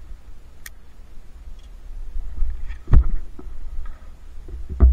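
Handling noise from a body-worn camera as climbing rope and harness gear are held and moved: a low rumble of movement, with two sharp knocks, about three seconds in and again just before the end.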